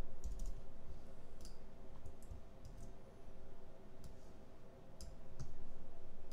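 Scattered clicks of a computer mouse and keyboard while a screenshot is taken, over a faint steady hum.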